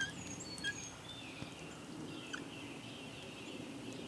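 Dry-erase marker writing on a whiteboard, its tip squeaking faintly in short, wavering high strokes, with a few brief high chirps near the start.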